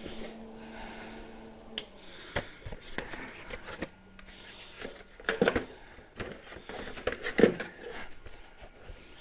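Irregular knocks and clinks of metal parts and tools being handled, loudest about five and a half and seven and a half seconds in, over a faint steady hum that stops about halfway through.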